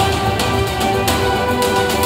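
Background music: held notes over a regular beat of about two hits a second.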